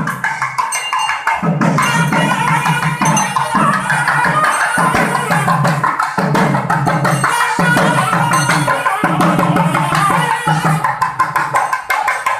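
Music with fast, busy drumming and other percussion.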